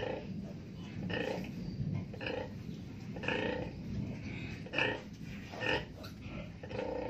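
A nursing sow and her suckling newborn piglets grunting: short grunts repeating about once a second over a low rumble.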